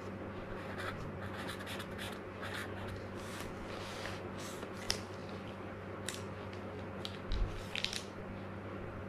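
Faint scratching of a felt-tip pen writing on diary paper, then a few soft clicks and rustles as the pen and page are handled, over a steady low hum.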